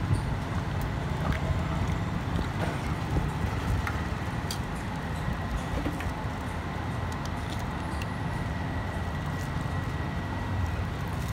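Steady low rumble of street traffic, with a few faint light clicks over it.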